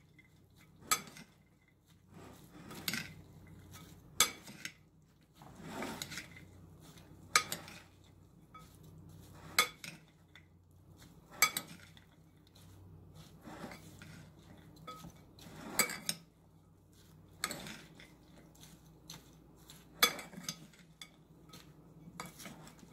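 Metal spoon clinking against a large ceramic bowl as a broccoli salad is stirred and tossed: a sharp clink every second or two, with soft rustling of the vegetables between.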